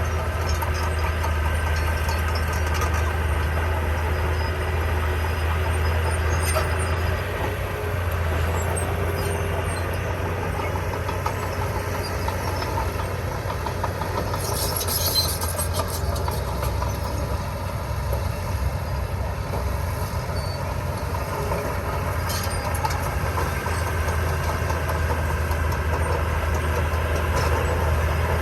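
Heavy diesel construction machinery running steadily with a deep, constant engine hum, with a few light metallic clinks and rattles, the loudest about halfway through.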